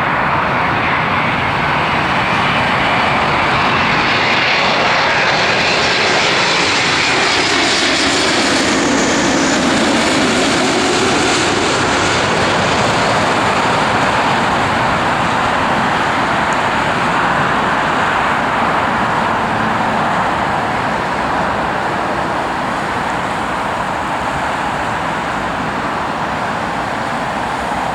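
Boeing 777-200's twin General Electric GE90 jet engines passing close by on landing approach: a loud, steady jet rumble with a tone that falls in pitch as it goes past, about eight to ten seconds in. The sound then slowly fades.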